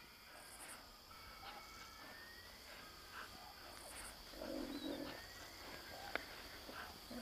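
Quiet savanna ambience of assorted birds chirping and whistling, with a low cooing call about four and a half seconds in and again near the end, and a single sharp click just after six seconds.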